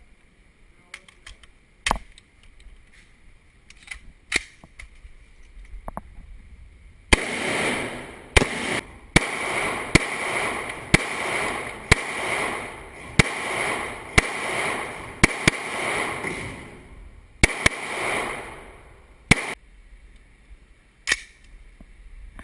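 Gunfire: a few scattered shots, then a steady string of about a dozen shots roughly one a second, each with a ringing tail, then three more spaced shots near the end.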